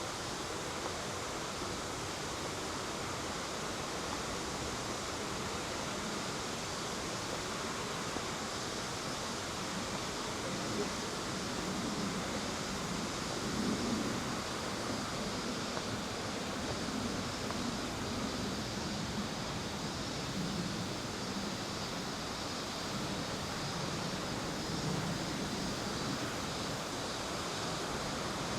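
Steady rushing of a mountain river flowing through a rocky gorge.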